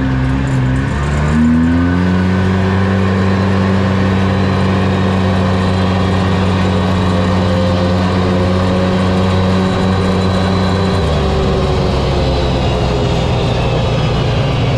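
A 2010 Polaris RZR 800S side-by-side's twin-cylinder engine under way. Its pitch rises over the first two seconds, holds steady while it drives, then drops to a lower, steady pitch about eleven seconds in.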